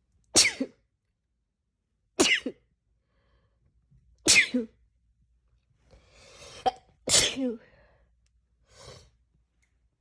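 A person sneezing four times in a fit, about two seconds apart, each sneeze sudden and explosive, with a drawn-in breath before the fourth. A softer breath follows near the end.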